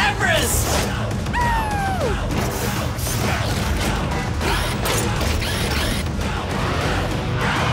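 Cartoon vehicle-transformation sound effects, mechanical clicks and clanks as a tracked snow vehicle with a grabber claw assembles, over music with a steady beat. A single falling tone sounds about a second and a half in.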